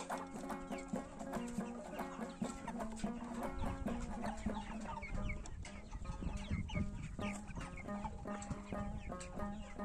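A flock of chickens clucking, many calls overlapping, with background music over them.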